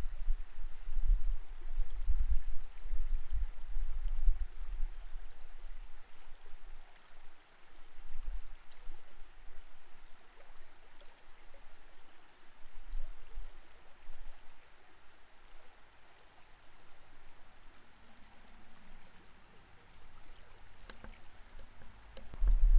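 Creek water flowing past an underwater camera: a muffled, even wash with irregular deep rumbles, stronger in the first few seconds and again at the very end.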